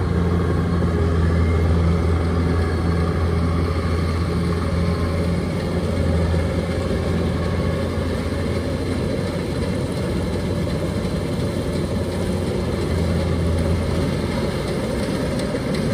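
Kubota DC-105X tracked rice combine harvester's diesel engine running steadily under load while cutting rice, a strong low hum.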